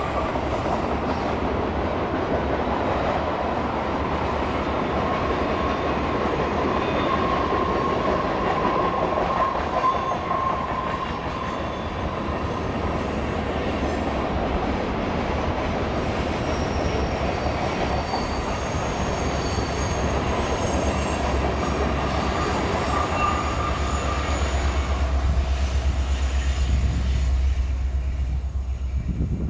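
Freight cars of a Union Pacific manifest train rolling through a curve, a steady rolling noise with the steel wheels squealing in thin high tones that come and go. Near the end, as the last cars go by, wind buffets the microphone with a low rumble.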